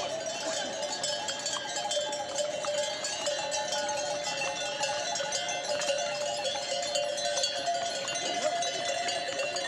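Many metal bells jingling and clanking together without a break, their overlapping tones ringing steadily.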